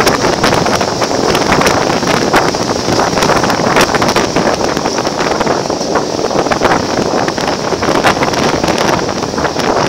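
Wind rushing over the microphone at an open window of a moving passenger carriage, with the train's running noise: a steady roar, many quick irregular clicks and knocks from the wheels and carriage, and a steady high whine.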